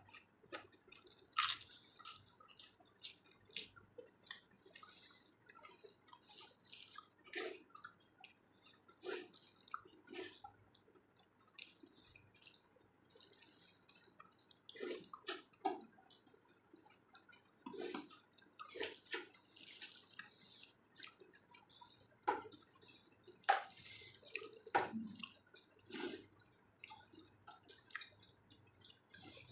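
Close eating sounds: wet chewing and mouth clicks as rice and dal are eaten, coming in short, irregular snaps.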